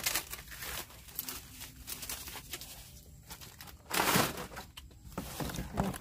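Dry, dead palm fronds and leaf litter crackling and rustling as they are pushed aside and bent by hand, with a louder rustle about four seconds in.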